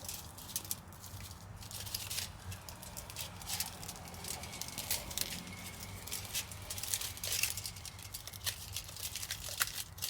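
Aluminium foil crinkling and rustling in irregular small crackles as a foil-wrapped baked potato is handled and opened.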